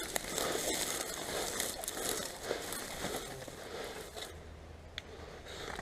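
Crackling and rustling of dry leaves, twigs and undergrowth, as of someone moving on foot through woodland brush; it eases off about four seconds in.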